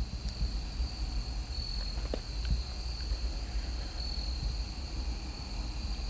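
Crickets trilling steadily in one continuous high-pitched note, with a low rumble underneath and a few faint ticks.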